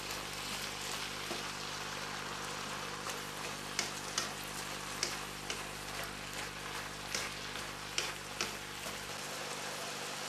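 Mixed vegetables sizzling as they stir-fry in a hot frying pan, a steady sizzle with a few short sharp clicks scattered through it.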